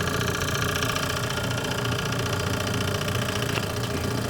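HVAC vacuum pump running steadily just after start-up, pulling a vacuum on an air conditioner coil; its owner says the pump's electric motor is going bad.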